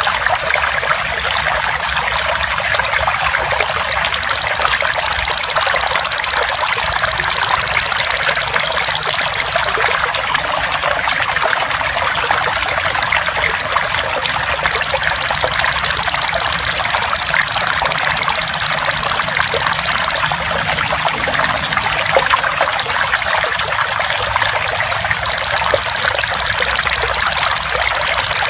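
Steady trickling water, with the loud, high-pitched buzzing song of a belalang emas (golden grasshopper) over it in spells of about five and a half seconds, starting about 4, 15 and 25 seconds in, separated by pauses of about five seconds.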